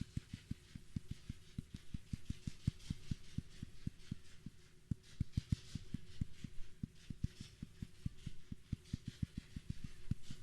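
Fireworks display heard as a rapid, irregular series of low, muffled thumps, about five a second, with faint crackling hiss above them.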